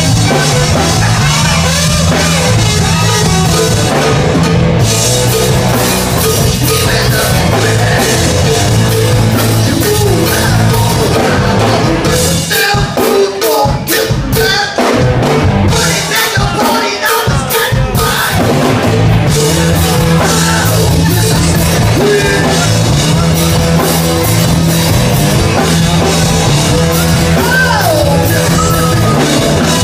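Loud rock music with a drum kit and singing. For several seconds in the middle the low end drops out and only sparse hits remain, then the full band comes back in.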